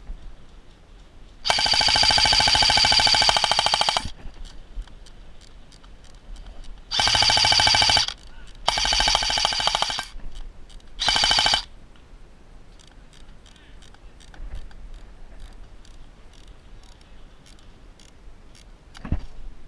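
Airsoft electric rifle firing four full-auto bursts: a long one of about two and a half seconds, then three shorter ones, each a fast rattle of shots over a gearbox whine. Faint scattered clicks follow.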